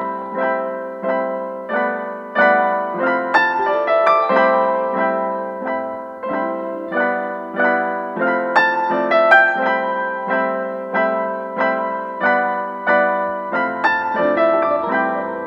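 Background piano music: a gentle melody of single notes, each struck and left to fade, about one or two a second.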